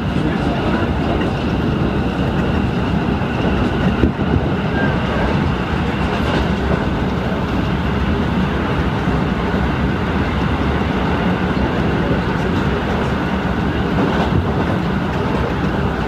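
Moving passenger train heard from inside the car: a steady rumble of wheels on the rails, with a few faint clicks.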